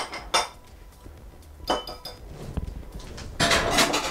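Metal wire whisk clinking and rattling against a glass mixing bowl of aioli as the bowl is handled: a couple of short ringing clinks, then a longer clatter near the end.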